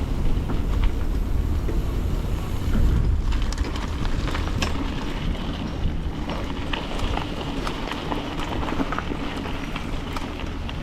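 Wind buffeting the microphone as a steady low rumble, with scattered small clicks and rattles from a few seconds in.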